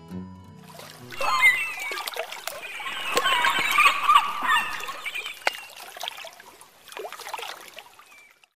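Water splashing and bubbling, starting about a second in, loudest around the middle, fading with a last splash near the end and then cutting off.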